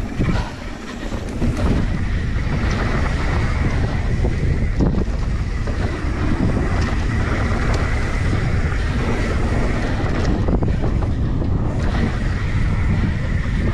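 Wind buffeting the on-bike camera microphone as a mountain bike rides down a dirt jump line, with low tyre rumble and a few knocks of the bike over bumps. It gets louder about a second and a half in as speed builds.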